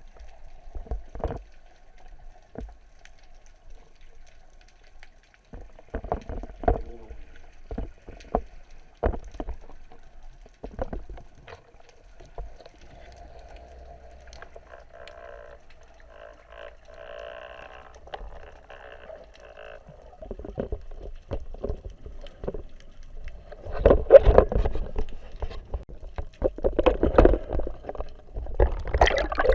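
Water sounds picked up underwater by an action camera during a freedive: scattered clicks and knocks, a faint steady hum, and louder gurgling, splashing bursts about 24 seconds in and again near the end.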